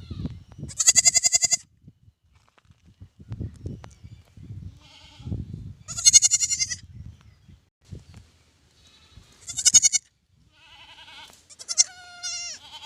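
Newborn lamb bleating four times in high, quavering calls, the last one wavering in pitch, with low muffled noises in between.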